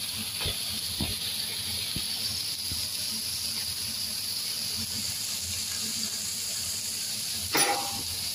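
Beef cubes and sliced onions sizzling in a frying pan as they brown, a steady high hiss. A short, sharp clatter sounds near the end.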